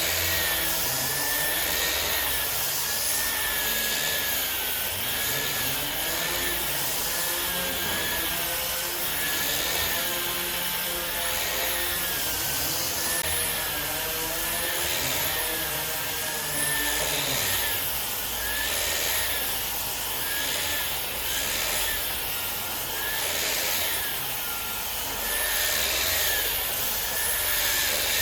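A power woodworking machine cutting wood without a break, with a steady noise and a whine that wavers up and down in pitch.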